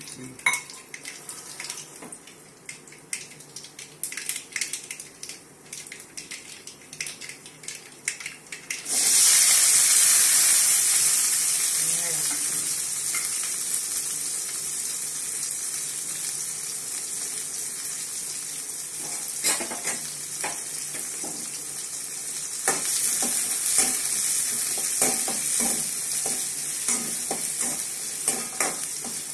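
Spices crackling in a little hot oil in an aluminium kadai. About nine seconds in, a sudden loud sizzle as peeled shallots go into the oil, easing off slowly. From about twenty seconds on, a spoon clinks and scrapes against the pan as the shallots are stirred.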